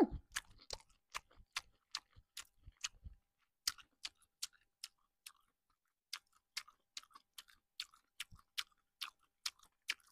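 A person chewing a mouthful of seasoned cockles close to the microphone. The chewing gives wet clicking mouth sounds about two to three times a second and pauses briefly around the middle.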